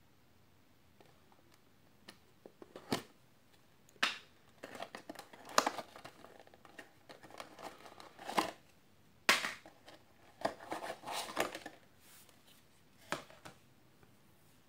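Clear plastic tube packaging being handled and opened by hand: irregular sharp clicks, scrapes and crinkles of stiff plastic, starting about two seconds in and stopping shortly before the end.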